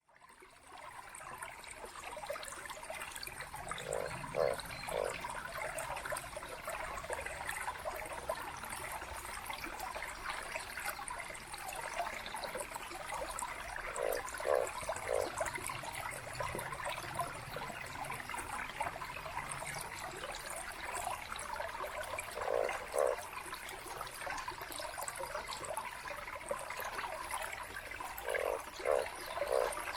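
Small mountain stream babbling steadily over rocks. A short low note sounds in groups of two or three every several seconds above the water.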